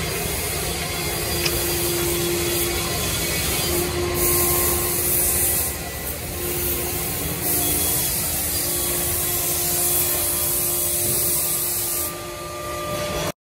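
Compressed-air blow gun hissing in long bursts with short breaks, starting about four seconds in, as it blows sawdust off a CNC router table, over a steady workshop hum. The sound cuts off suddenly near the end.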